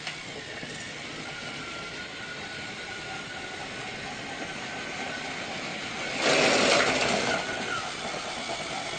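A train running with a steady rushing noise and a faint thin tone, then a loud burst of noise about six seconds in that lasts about a second.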